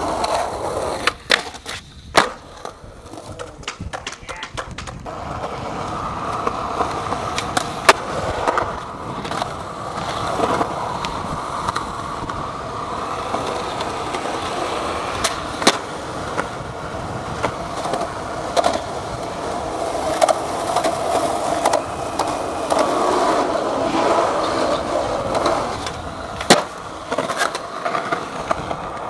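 Skateboard wheels rolling on asphalt with a steady rumble that settles in about five seconds in. Sharp clacks of the board hitting the ground come several times near the start and a few more times later.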